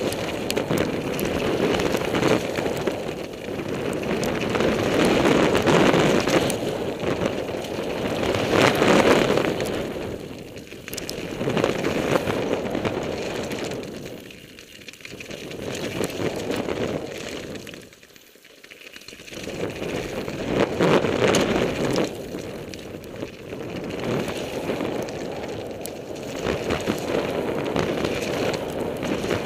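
Wind rushing over a helmet camera's microphone, with tyre noise and light rattling from a mountain bike descending a wet gravel trail at speed. The rush surges and eases, dropping away briefly twice around the middle.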